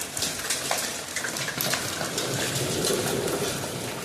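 Heavy rain with small hailstones falling: a steady hiss of rain with many scattered sharp ticks of hail striking.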